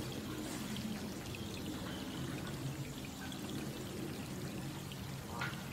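Steady rain falling on a pond's open water: an even hiss with many small drop ticks, heaviest low down.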